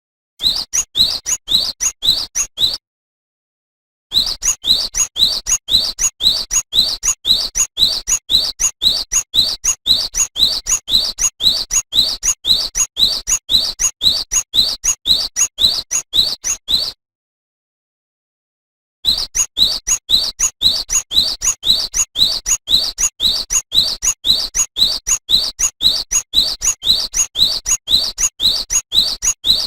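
Cinereous tit (gelatik batu) singing: a fast, even string of short rising whistled notes, about three a second. The song breaks off abruptly into dead silence twice, at about 3 seconds and about 17 seconds in, each time resuming after a second or two.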